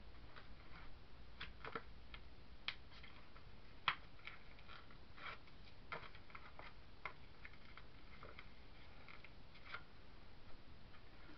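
Hands handling card and craft materials on a tabletop: irregular light clicks and taps, the sharpest about four seconds in.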